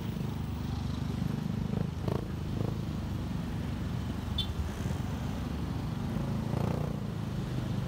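Motorcycle engine running low and steady at crawling speed, with the rumble of surrounding scooter and car traffic.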